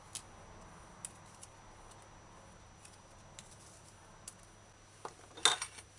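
Small knife peeling a garlic clove: a few faint scattered ticks, then a short burst of louder scraping near the end.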